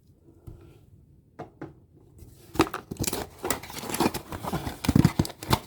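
Blind-box packaging being handled: a few soft clicks, then about two seconds in a dense run of crinkling and rustling with sharp crackles.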